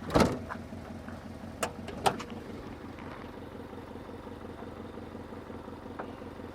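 Subaru Legacy BG5's flat-four boxer engine idling steadily, with no knocking now that its cracked flex plate (the drive plate to the torque converter) has been replaced. A sharp clack near the start and two shorter knocks about two seconds in come from the bonnet being released and lifted.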